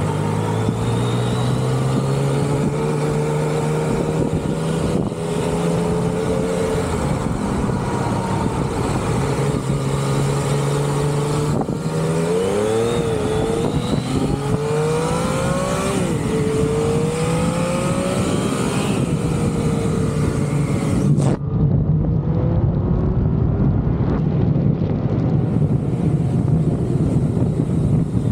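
Vehicle engine running steadily under way with a rushing hiss. Around the middle the revs rise and fall several times, then settle back to a steady run. A little past two-thirds through, the hiss cuts out abruptly while the engine carries on.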